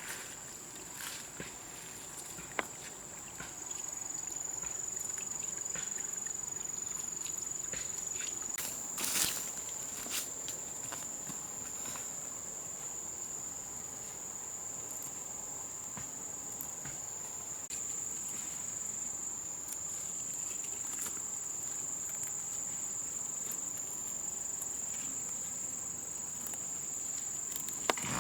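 Steady high-pitched insect drone from the forest, with scattered short knocks and rustles and one louder crack about nine seconds in.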